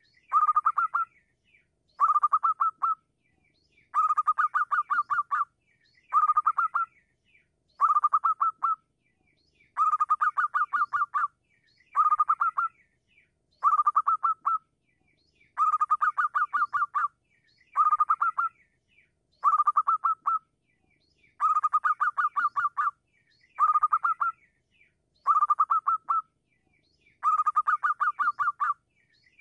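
Zebra dove cooing: a phrase of quick staccato notes, about a second long, repeated about every two seconds.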